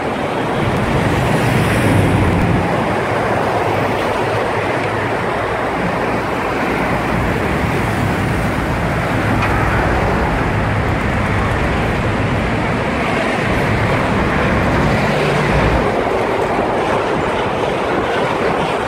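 Steady road traffic noise: a low rumble under a wide hiss, with no single event standing out.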